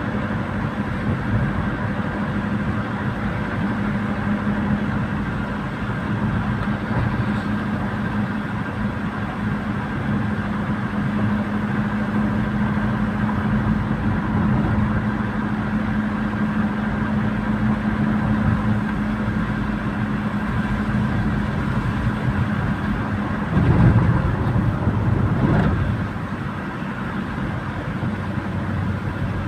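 Vehicle engine running steadily with a constant hum. About three-quarters of the way through it gets briefly louder and changes pitch, then settles back into steady running.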